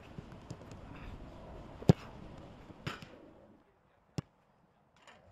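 A football being kicked hard, a sharp thud about two seconds in, then a second strike about a second later and a fainter third near four seconds. Under the first two strikes runs a steady rushing noise that stops shortly after the second.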